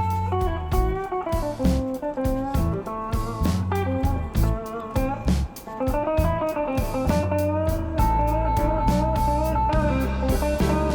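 Background music: a blues-style guitar track with bass and a steady beat.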